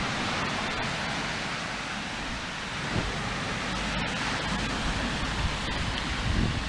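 Swedish-torch log fire burning in a steady wind: an even rushing noise with low buffeting of wind on the microphone and a few faint crackles.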